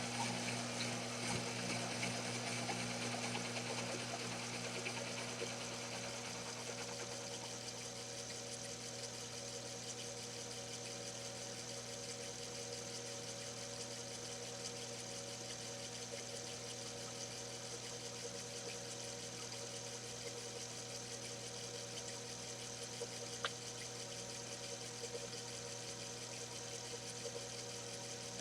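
Small metal lathe turning a long cut, its carriage driven by a motorised leadscrew power feed: a steady machine hum with a few held tones that eases slightly over the first few seconds.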